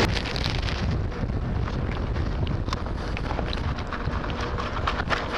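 Wind buffeting the microphone as a steady low rumble, with scattered light clicks and scrapes throughout.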